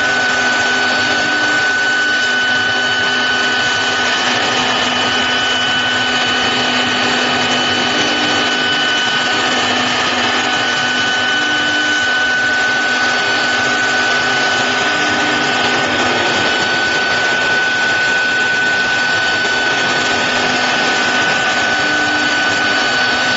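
4-axis stone CNC router running steadily: a constant spindle whine over an even hiss. A second, higher whine sounds for about ten seconds in the first half.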